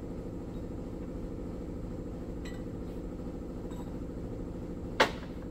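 Metal clinks from the valves and small parts of a John Deere 6068 cylinder head being handled as the valves are removed, over a steady low machinery hum. A few faint clicks come through, and a single sharp metallic clink sounds near the end.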